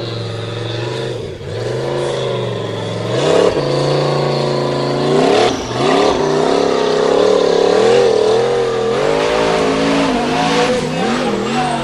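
Formula Offroad buggy's engine revving hard under load as it claws up a steep dirt hill on paddle tyres, the pitch rising and falling as the throttle is worked. The revs climb sharply about three and a half seconds in and dip briefly around five and a half seconds.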